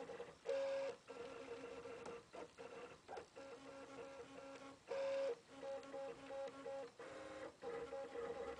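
Stepper motors of an FFF 3D printer whining as the print head makes its moves. The pitch jumps to a new note with each move, with short breaks between moves, and there are louder stretches about half a second and five seconds in.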